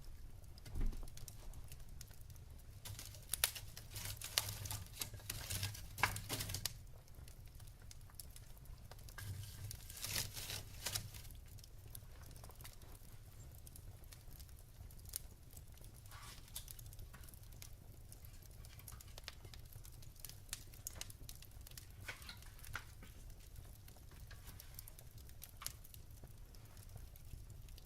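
Wood fire in a fireplace crackling: irregular pops and snaps from the burning logs, in thick flurries a few seconds in and again about ten seconds in, then sparser.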